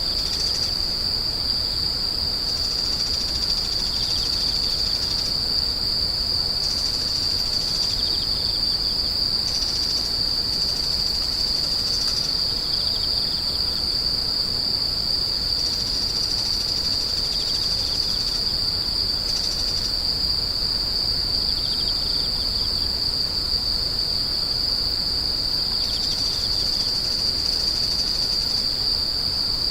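Grass insects chirring in one continuous, steady high-pitched trill, with a fainter, lower call coming and going every few seconds.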